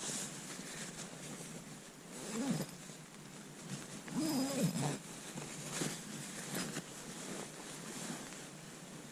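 Sleeping-bag fabric rustling as a man settles down to sleep, with two short wordless sounds from his voice: a brief one about two seconds in and a longer one about four seconds in that rises and falls.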